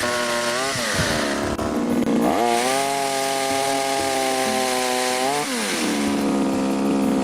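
Kiam Sherwood multi-tool's two-stroke petrol engine driving its pole pruner chainsaw head, revving up and down. The engine speed drops about a second in and climbs back a little after two seconds. It holds high for about three seconds, then falls back to a lower steady speed near the end.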